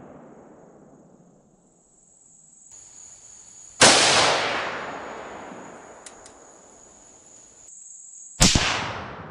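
Two shots from a Remington 783 bolt-action rifle in .243 Winchester, about four and a half seconds apart, each a sharp crack followed by a long echo that dies away over a few seconds.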